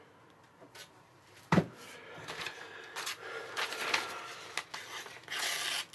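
A single thump about one and a half seconds in, then a sheet of newspaper rustling and crinkling as it is handled, busiest near the end.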